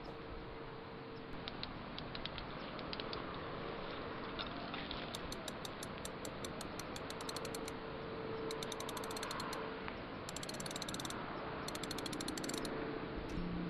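Night insects calling: fast clicking trills in several bursts of one to two seconds each, starting about five seconds in, over a steady outdoor background noise.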